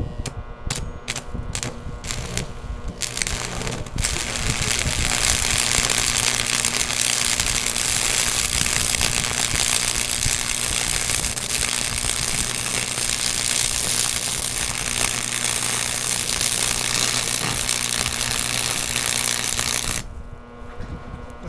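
Electric arc welding on steel rods: a few short crackling arc strikes in the first three seconds, then the arc held in a steady crackle over a low electrical hum for about sixteen seconds, cutting off shortly before the end.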